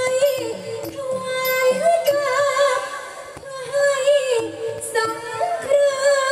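A woman singing a wavering, ornamented Thai likay melody through a stage microphone and PA, over instrumental accompaniment with regular percussion strikes.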